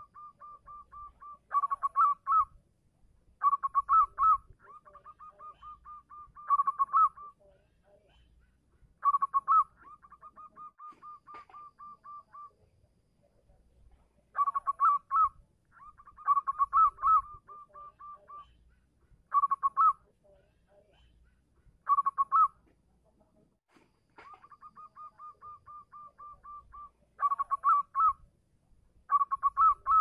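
Zebra dove (perkutut) cooing: runs of soft, quick, evenly spaced staccato coos, broken every few seconds by short, much louder clustered phrases.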